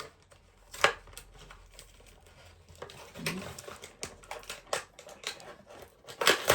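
Handling noises: scattered sharp clicks and taps of hard objects being moved about, with a louder flurry near the end.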